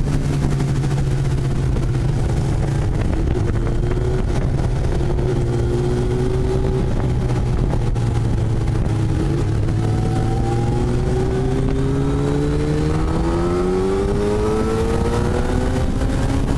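Kawasaki ZX-10R sport bike's inline-four engine running under way, with a steady rush of wind noise. Its pitch holds fairly even and sags a little, then climbs over the last few seconds as the bike accelerates.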